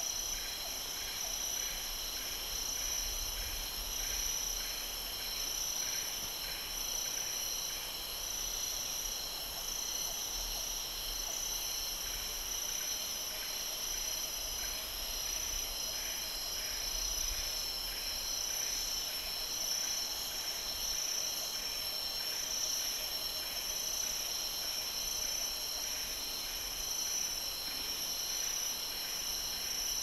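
Tropical forest insect chorus: several insects shrilling steadily at high pitch, with another giving a pulsing call about twice a second.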